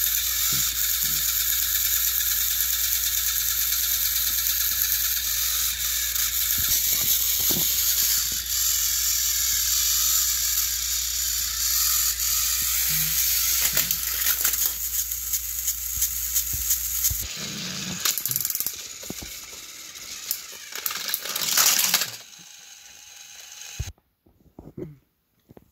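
Battery-powered Thomas & Friends toy train engines running on plastic track: a steady whirring, ratcheting motor-and-gear noise. It turns uneven after about seventeen seconds and stops about twenty-two seconds in.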